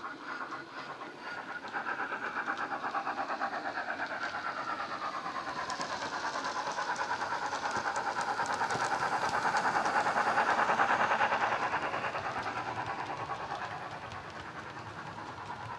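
Wheeltappers DCC sound file for a Hornby 00-gauge Stanier 8F 2-8-0 steam locomotive, played through a small 25x25x7 mm megabass speaker in the model: fast, even steam-exhaust chuffs as the model runs along. It grows louder as the locomotive approaches and passes, loudest about two-thirds of the way in, then fades.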